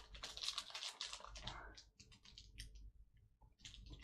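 Plastic trading-card packaging being handled and worked open by hand: faint, irregular crinkling and clicking with short pauses.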